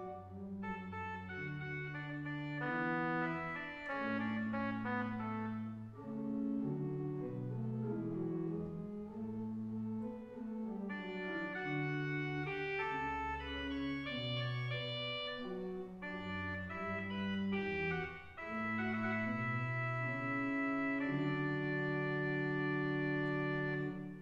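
Church organ playing a slow piece of sustained chords over a moving bass line, closing on a long held final chord that is then released.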